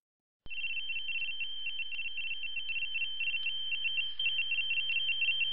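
A high electronic tone that warbles rapidly and evenly, like a telephone ringtone, starts abruptly about half a second in and then runs on steadily, with a faint low hum beneath it.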